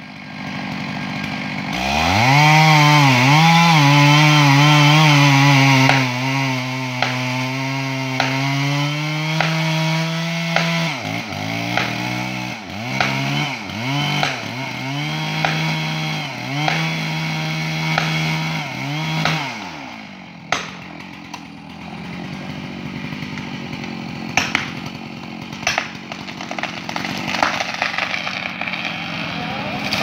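Two-stroke chainsaw revving up about two seconds in and cutting at full throttle through the trunk of a large tree being felled, then throttled up and down about once a second before it stops about two-thirds of the way through. After it, a rustling noise with scattered sharp cracks as the tree goes over.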